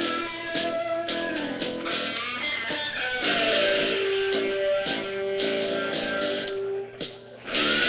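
Guitar music: plucked and strummed notes, some held and some sliding in pitch. It drops away briefly about seven seconds in.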